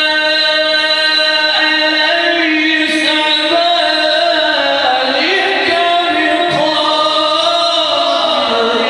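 A man's voice reciting the Quran in a slow, melodic chanting style into a microphone. He holds one long steady note for the first few seconds, then ornaments it with rising and falling turns.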